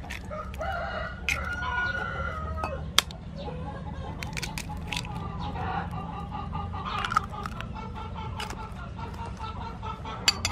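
Chickens clucking and calling in the background, with a few sharp clicks of eggshells being cracked against a ceramic bowl, the loudest about three seconds in.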